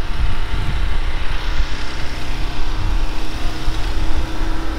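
An engine running steadily with a constant hum, under a heavy, uneven low rumble.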